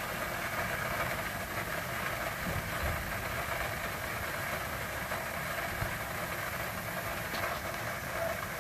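Steady rush of rinse water draining from an RV black tank through a clear sewer elbow into the sewer hose while the tank is flushed.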